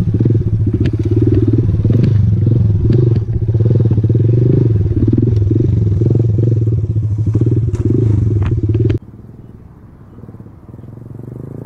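Honda MSX 125's small single-cylinder four-stroke engine running steadily at low revs while riding over rough dirt, with scattered knocks and clatter from the bike. The engine sound cuts off suddenly about nine seconds in, leaving a low background, and faint music starts to come in near the end.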